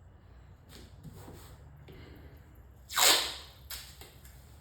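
A single short, sharp swish or rip about three seconds in, amid light rustling as a vinyl stripe and its tape are handled on a car's trunk lid.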